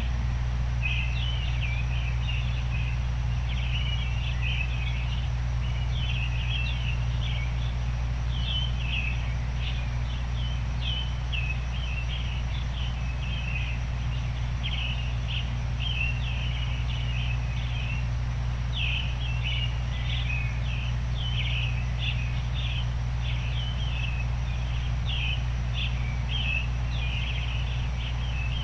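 Small songbirds chirping and twittering in a continuous chorus of short, quick calls over a steady white-noise bed, heaviest in a constant low rumble.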